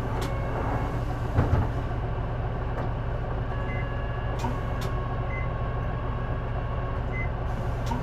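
Interior sound of a J-Bus city bus running: a steady engine and drivetrain rumble with a thin steady whine over it, and a brief knock about a second and a half in. The uploader puts an unexplained noise on this bus down to the exhaust or turbocharger area.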